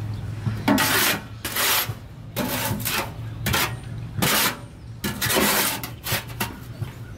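Long-handled tool scraping and stirring through material in a wheelbarrow: about seven rough scraping strokes, each under a second, at an uneven pace.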